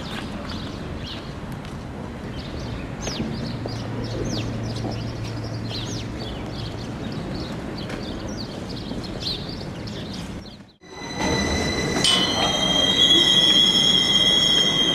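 Street noise with many short, high, falling chirps. About two-thirds of the way in, the sound cuts out briefly and changes to a railway station, where a train's wheels squeal with a loud, steady, high ringing of several tones at once.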